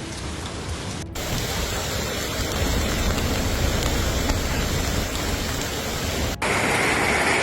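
Heavy rain and running water making a steady hiss. It breaks off abruptly about a second in and again near the end as one clip gives way to the next.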